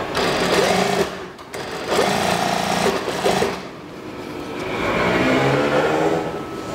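Industrial lockstitch sewing machine stitching in three runs, stopping briefly between them: about a second, then about two seconds, then a longer run that builds up and eases off near the end.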